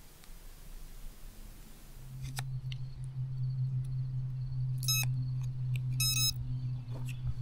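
Two short electronic beeps about a second apart, typical of an Eachine E120S RC helicopter's electronics starting up as its flight battery is connected. A steady low hum runs underneath them.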